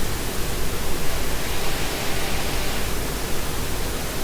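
Propellers of a fischertechnik monorail carriage whirring on their small electric motors, a steady rushing whir whose speed varies.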